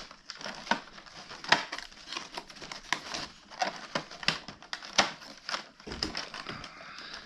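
Cardboard packaging of a Pokémon advent calendar being handled and pried open: irregular crinkling and crackling, with sharp clicks and snaps scattered throughout.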